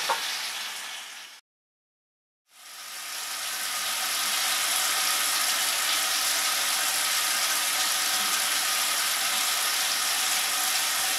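Kitchen faucet running a thin stream of water into a stainless steel sink, a steady noise that fades in after a second of dead silence. Before the silence, a shaving brush briefly whisks lather in a tub of shaving soap.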